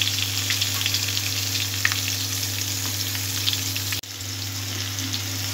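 Raw potato chunks sizzling in hot vegetable oil in an aluminium kadai, a steady hiss with scattered small crackles, over a steady low hum. The sound drops out for an instant about four seconds in, then the sizzling resumes.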